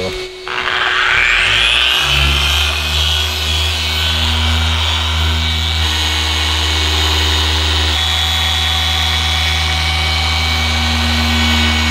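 Small Rupes mini polisher starting up about half a second in, its motor whine rising in pitch over a couple of seconds, then running steadily as its foam pad polishes a plastic tail-light lens.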